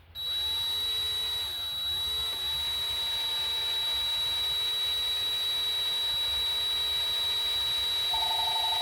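Electric drill turning a reverse (left-hand) drill bit into a bolt broken off in a cast-iron engine block. The motor whines steadily at a high pitch, and its speed dips briefly twice in the first few seconds as the bit bites.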